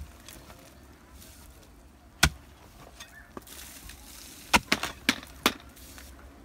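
Hoe blade striking packed earth and stone while digging: single sharp blows, one right at the start, one a couple of seconds in, then four in quick succession about three-quarters of the way through.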